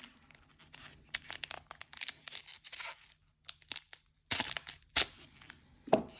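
One Piece Card Game booster pack wrappers being torn open and handled: an irregular run of sharp rips and crinkles, the loudest about four and a half and five seconds in.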